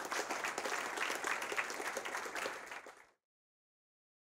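Audience applauding, a dense patter of many hands clapping, which cuts off suddenly about three seconds in.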